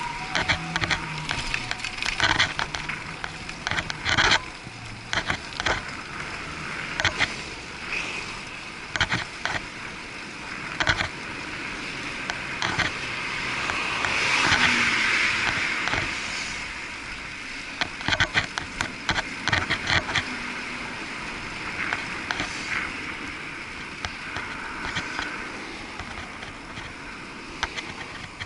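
Muffled ride noise from an action camera in a waterproof housing on a moving bicycle: irregular clicks and rattles from the bike and housing over the road surface, over a steady hiss of city traffic. About halfway through a swell of traffic noise builds and fades as a vehicle goes by.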